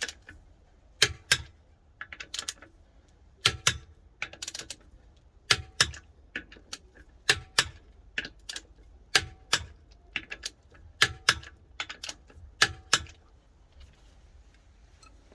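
A run of sharp clicks or taps, often in pairs, coming irregularly about once a second, some with a brief metallic ring. They stop about 13 s in.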